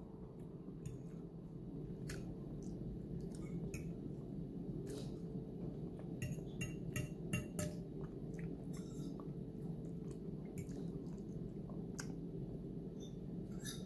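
Person chewing food, with scattered small clicks and clinks of a metal fork against a ceramic plate, over a steady low background hum.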